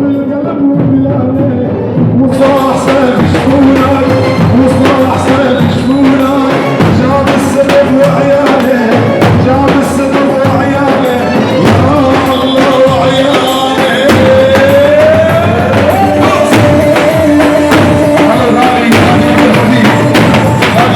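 Live Arabic folk wedding music: a held, ornamented melody line over a steady drum beat, growing fuller about two seconds in and sliding up in pitch about two-thirds of the way through.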